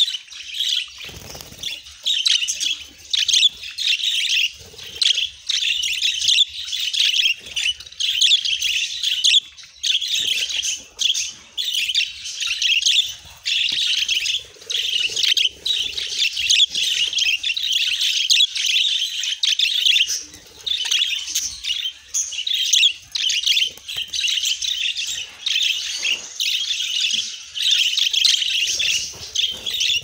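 A flock of budgerigars chattering: many birds' warbles and short chirps overlap in a dense, high-pitched chatter with only brief lulls.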